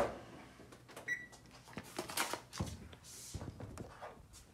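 Light knocks, clicks and thumps of things being handled and set down on a kitchen counter and stove, with one short electronic beep about a second in.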